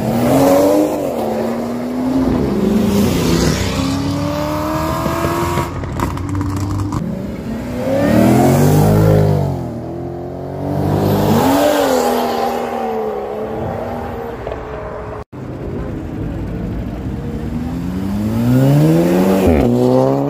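Modified cars accelerating hard away one after another, each engine rising in pitch as it revs up and then fading. The cars include a BMW 1 Series hatchback, an Audi estate and a Mk5 Volkswagen Golf. The strongest pulls come at the start, about eight seconds in, and near the end.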